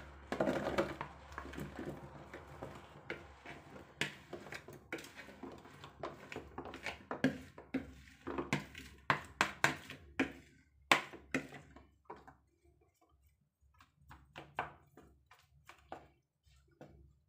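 Handfuls of oil-marinated black olives dropping into a plastic food container, with quick taps and knocks of olives and fingers on the plastic and the bowl. The clicks come thick and fast for about twelve seconds, stop briefly, then come a few at a time.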